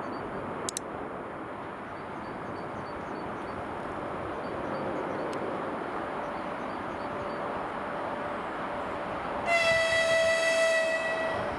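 Approaching freight train hauled by a 2ES4K electric locomotive, a steady rushing rumble that slowly grows louder. About three-quarters of the way through, the locomotive sounds one long horn blast on a single steady pitch, held for about two seconds.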